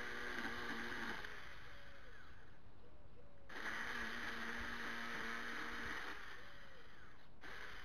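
42 V cordless electric chainsaw running in two short bursts, each a steady motor whine over a hiss, starting and stopping sharply as the trigger is pulled and released.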